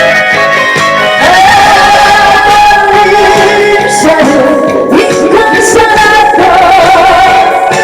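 A woman singing a Korean pumba/trot-style song over a loud backing track, holding two long, wavering notes.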